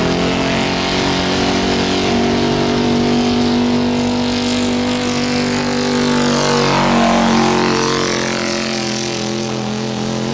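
1977 Ford F-250's gas engine running flat out under heavy load as the truck drags a weighted pulling sled. The engine note is held steady and grows loudest as the truck passes about two-thirds of the way in.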